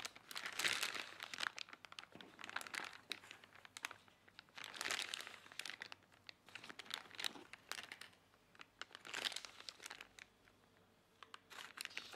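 Faint crinkling of a plastic piping bag, coming and going in short spells, as meringue is spooned into it with a spatula.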